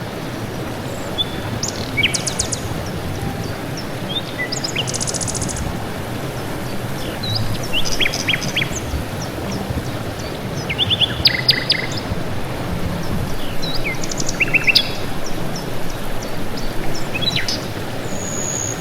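Several wild birds chirping and calling, short whistles and quick trills scattered throughout, over a steady background hiss.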